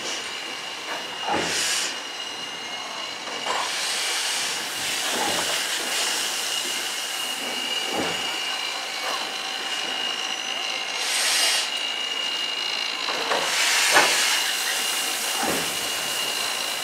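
Class 52 steam locomotive 52 8184-5 moving slowly, with a steady hiss of steam over a steady high whine and irregular louder bursts of steam hiss, about four of them. A few short metallic knocks come in between.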